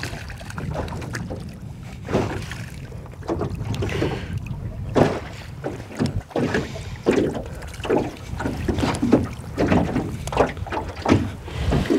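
Wind buffeting the microphone, with small waves slapping against an aluminium boat hull in irregular knocks that come several times a second from about two seconds in.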